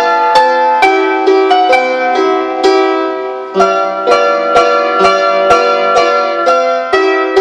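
Instrumental music: chords of sharply attacked, ringing notes at a steady beat of about two a second, with a brief dip about three and a half seconds in.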